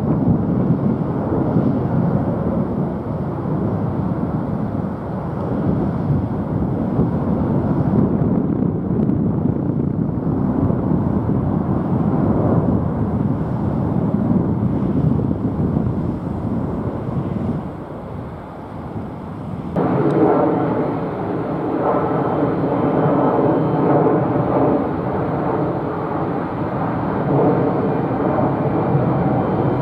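Jet engines of an Airbus A330-300 roaring as it climbs out after takeoff. About twenty seconds in, the sound switches abruptly to the two GE90 engines of a Boeing 777-300ER climbing out: a roar with a steady buzzing drone of several tones over it.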